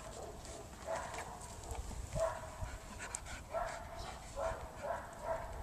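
A dog giving short, high cries that repeat about every half second to a second.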